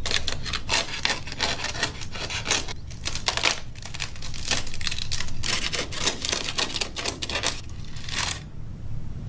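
The papery envelope of a wasp nest being torn open, a dense run of dry crackling and tearing with brief pauses.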